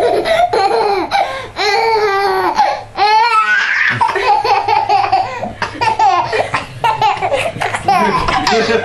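Toddler laughing hysterically in long high-pitched peals, broken by a short catch of breath about three and a half seconds in.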